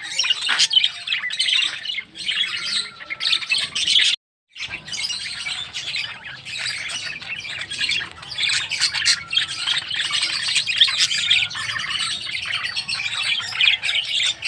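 A flock of lovebirds chattering, with continuous shrill chirps and squawks. The sound cuts out completely for about half a second around four seconds in, then resumes.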